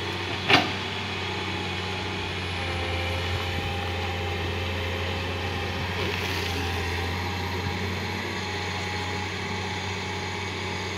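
Heavy diesel engine running steadily with a low, even hum, with one sharp knock about half a second in.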